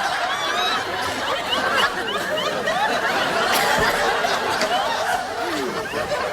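Many voices chattering and laughing at once, a dense party hubbub with no single speaker standing out.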